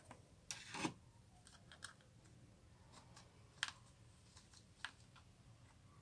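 Slime being handled: quiet sticky clicks and pops, with a short squishing crackle about half a second in and single sharper clicks now and then.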